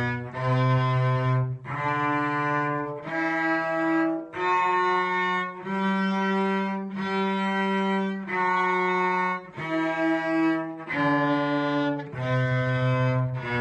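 A violin and a cello playing the G major scale together, bowing one sustained note per beat, stepping up the scale and then back down.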